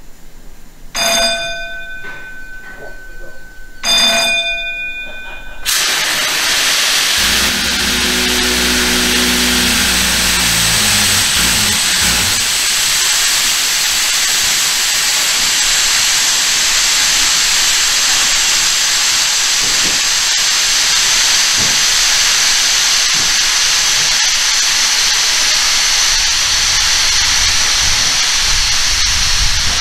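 Two short ringing tones about three seconds apart. Then, about six seconds in, a loud steady hiss of compressed air venting from the stabled train's air brake system starts and keeps going.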